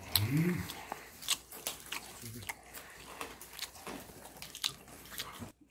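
People biting into and chewing lettuce-wrapped food close to the microphone: a run of crisp crunching and smacking clicks, with a short hummed vocal sound near the start and another, fainter, a little after two seconds in.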